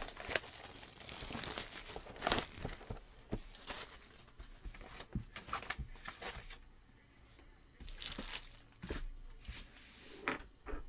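Packaging of a 2019 Panini Certified football card hobby box being torn open and crinkled: a busy run of scratchy rips and sharp handling clicks for the first few seconds, then only scattered handling sounds with a quiet spell in the middle.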